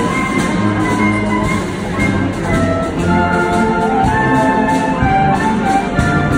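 Military wind band playing, with clarinets and brass sounding a melody and chords in held notes over a low bass part, the notes changing every half second or so.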